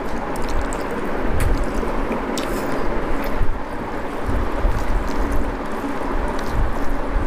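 Eating sounds: rice and egg curry being mixed by hand and chewed, with irregular soft thumps and a few light clicks over a steady hiss.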